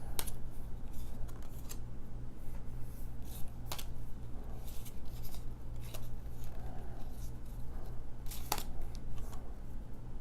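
Baseball cards being handled and flipped through: scattered light clicks and snaps of card stock, a few seconds apart, over a steady low hum.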